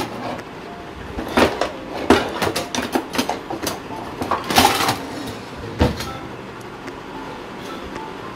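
Metal kitchenware and utensils clattering and knocking as they are handled in a drawer under the stove, a string of sharp clanks with the loudest, briefly ringing, about halfway through and a heavier thud about six seconds in.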